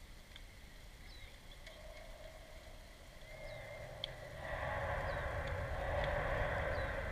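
Short, high, falling chirps repeating about once a second, like a small bird calling. About four seconds in there is a sharp click, then a louder, steady wash of noise with a low rumble comes in.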